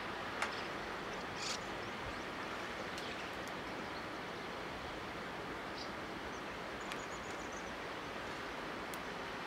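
Steady outdoor background hiss of river-bank ambience, with a few faint, brief clicks and chirps, the sharpest about half a second in.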